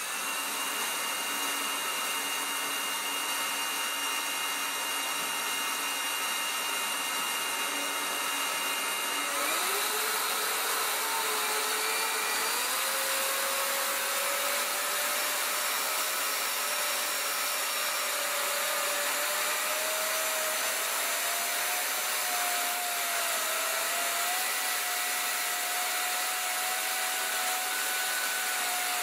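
ATEnge rechargeable electric air duster running: a loud, steady motor whine with a rush of air, first at its lowest speed. About nine seconds in the pitch climbs as it is switched up, then steps higher a few more times toward its top speed.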